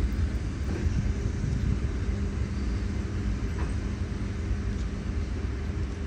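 ED4M electric multiple unit rolling slowly into the terminus: a steady low rumble with a constant hum over it.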